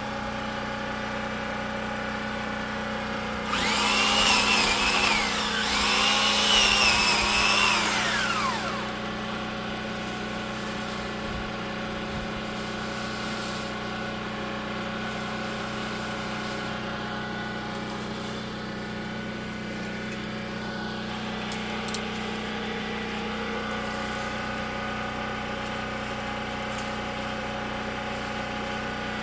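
Pole saw speeding up and bogging down twice over about five seconds, starting a few seconds in, as it cuts through branches, over a steady engine hum that runs throughout.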